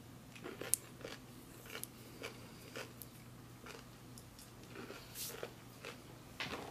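A person chewing an M&M's candy with the shell dry and cracked with age, giving faint, irregular crunches about once or twice a second.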